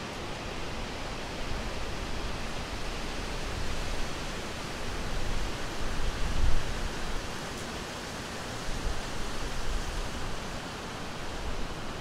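Wind: a steady rushing hiss with uneven low rumbling gusts, the strongest a little past the middle.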